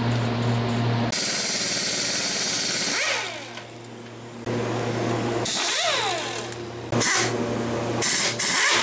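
An aerosol spray can hissing onto rusted bolts, then a pneumatic impact wrench run in short bursts, its pitch rising and falling as it spins up and winds down, with the loudest bursts near the end.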